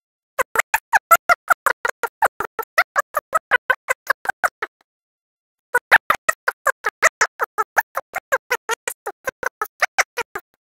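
A rapid train of short, sharp pulses, about seven a second, in two runs of roughly four seconds each with a second of silence between them.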